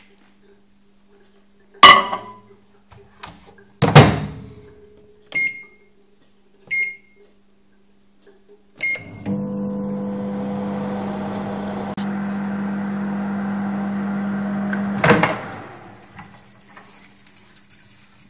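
Microwave oven in use: two loud thunks, three short keypad beeps, then the oven running with a steady hum for about six seconds, ending in a sharp clack as it stops.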